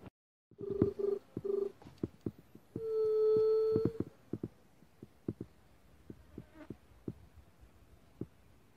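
Low dove-like hooting: three short notes, then one long, steady hoot lasting about a second, followed by scattered light clicks and snaps.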